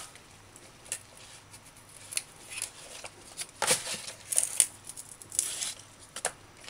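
Fresh callaloo leaves and stems being handled and stripped by hand: irregular crisp rustles and tearing, with the loudest bursts around the middle.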